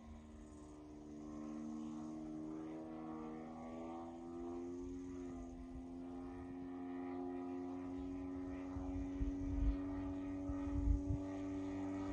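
Engine of a large RC model plane, a 3W-157 two-stroke petrol engine, running steadily with its pitch slowly rising. Low gusts of wind buffet the microphone in the second half.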